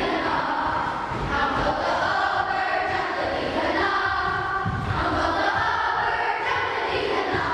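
A class of schoolchildren singing together as a choir, many voices blended into one steady sound.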